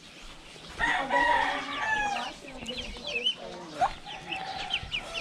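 A rooster crowing once, a long call starting about a second in, followed by short chirping calls.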